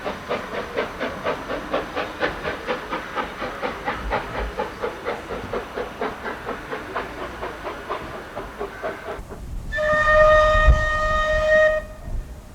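GNR 4-4-0 steam locomotive No. 171 working hard, its exhaust beating at about four to five chuffs a second and fading away; about ten seconds in its steam whistle sounds one steady blast of about two seconds.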